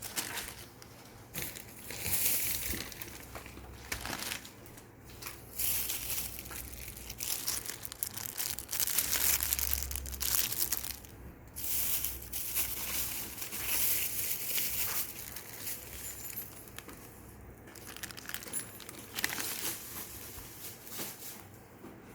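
Irregular crinkling and rustling handling sounds, coming in uneven bursts.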